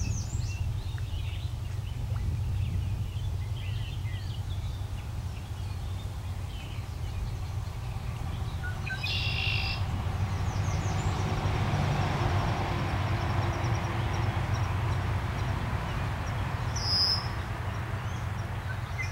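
Small birds chirping and calling, with a louder call about halfway through and another at the end, over a steady low rumble.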